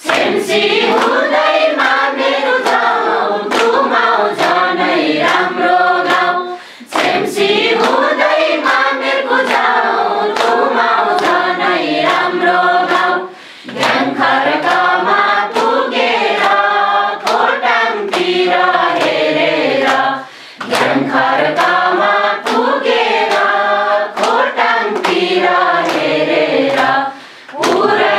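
A group of men and women singing a Nepali children's song together in unison, clapping along to the beat. The singing breaks briefly between lines about every seven seconds.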